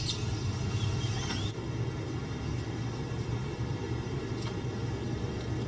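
A steady low hum with a rumbly background noise, even throughout.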